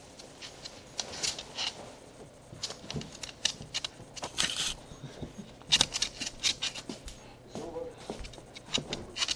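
Pug nosing around right at the microphone: irregular clicks and scratches of her claws on the hardwood floor, with snuffling, and a short pitched grunt about eight seconds in.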